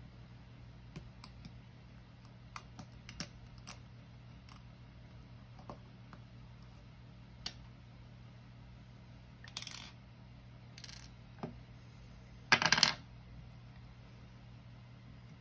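Small brass parts of a Mul-T-Lock Junior lock cylinder clicking and clinking against each other and a pinning tray as the lock is taken apart. Scattered light clicks, short rattles around ten and eleven seconds in, and the loudest metallic jingle about three-quarters of the way in.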